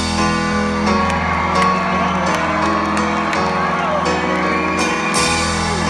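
Live rock band music led by piano chords over a steady bass, heard loud through a crowd recording, with the audience cheering and whooping over it.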